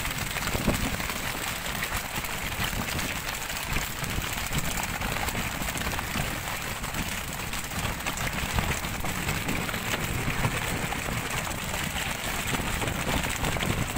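Steady, hissing noise of water splashing and churning along the hull of a pole-and-line tuna fishing boat, with a low rumble from the boat underneath.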